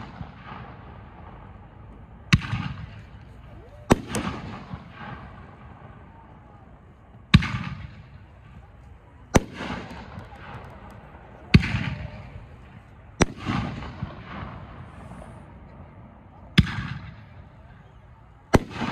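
Consumer aerial firework cake firing single shots one after another: eight sharp bangs at uneven gaps of about two to three seconds, each followed by a rolling echo.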